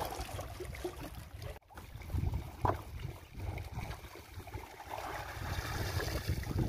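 Wind rumbling on the microphone over lake water lapping against shore rocks; near the end, water pours and splashes out of a net bag as it is lifted from the lake with a caught tilapia inside.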